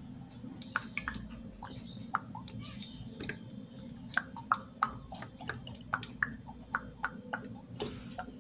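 Cooking oil pouring from a plastic bottle into a frying pan, with a run of irregular small plinks and clicks, a few a second, over a low steady hum.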